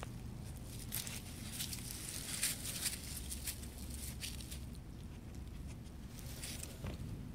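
Small dog rubbing and rooting its face into grass and dry leaves: irregular rustling and crackling of the leaves against its head, loudest in a cluster a little before the middle.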